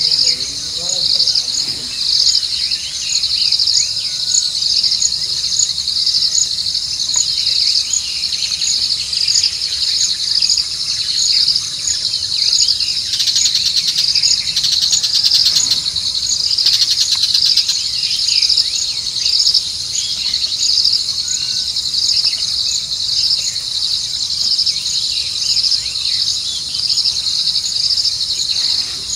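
Steady chorus of night insects, a dense high-pitched chirping that pulses a few times a second, with scattered faint shorter chirps below it.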